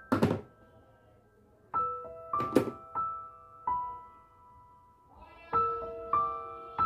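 Piano melody playing as background music, with loud hollow knocks of hard plastic toy figures being handled against a plastic box: one right at the start and a quick double knock about two and a half seconds in.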